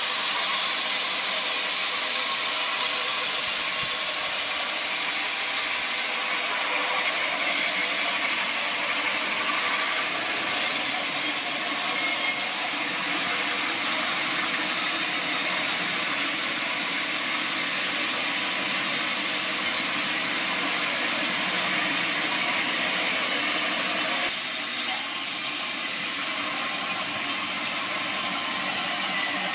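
Sawmill machinery running steadily: a continuous, even mechanical noise with no speech, its tone shifting slightly about 24 seconds in.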